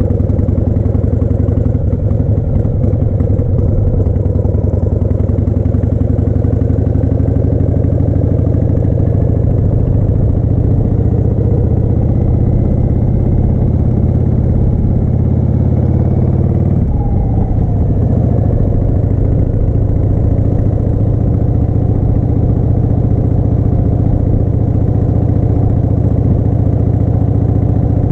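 1988 Harley-Davidson Heritage Softail's 1340 cc Evolution V-twin, pulling a sidecar, running steadily, with a brief change in the engine note about two-thirds of the way through.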